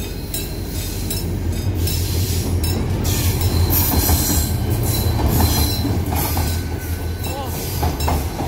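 A Korail diesel locomotive passing close by, its engine a deep steady drone, growing louder about three seconds in as it reaches the crossing. The passenger coaches follow, their wheels rumbling and clattering over the rails, with a few brief squeals.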